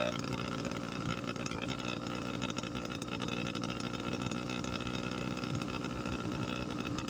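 Motorbike engine running steadily.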